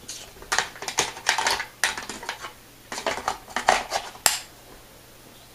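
Hard plastic and metal parts of an MK98 airsoft rifle clicking and clinking as it is handled and assembled, in two runs of quick clicks and knocks, the second ending in a sharp click about four seconds in.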